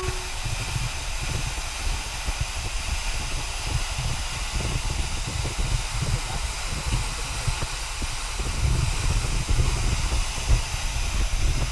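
Waterfall's falling water: a steady rushing hiss with an uneven low rumble underneath.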